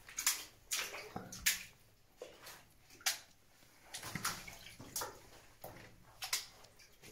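Footsteps splashing through shallow water, an irregular walking rhythm of sharp sloshes about one or two a second.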